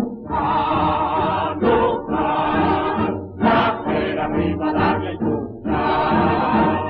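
A chorus singing a march in phrases over an orchestra, from a 1950 recording whose sound is dull, with little high end.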